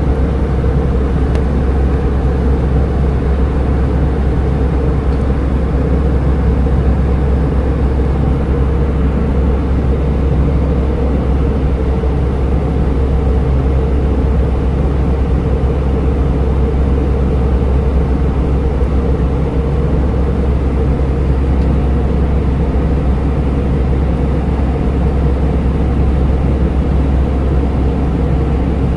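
Steady drone inside a passenger aircraft cabin in flight: engine and airflow noise, heaviest in a deep low hum, unchanging throughout.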